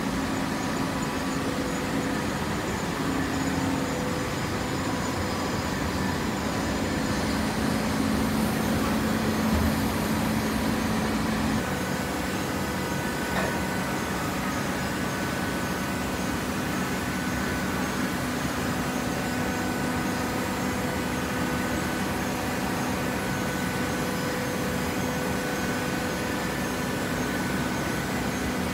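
Steady mechanical hum of a running horizontal hydraulic baler and its feed machinery, several steady tones over a dense drone. The pitch pattern shifts about twelve seconds in.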